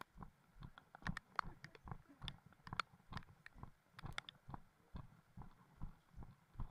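Footsteps on a grassy, earthen trail: a steady run of soft thumps at about three a second, with small clicks and rustles of plants brushing past.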